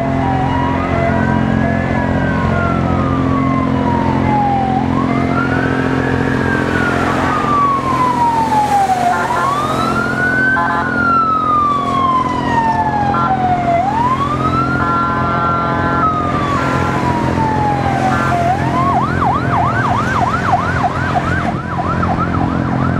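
Fire truck sirens on wail, each sweep rising quickly and falling slowly over a few seconds, with a second siren overlapping midway and brief steady tones cutting in. Near the end the siren switches to a fast yelp, about two sweeps a second, over the steady rumble of truck engines and traffic.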